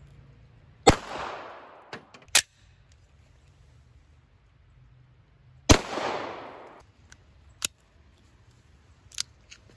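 Two handgun shots about five seconds apart, each echoing out for about a second. Several sharp clicks fall between and after them.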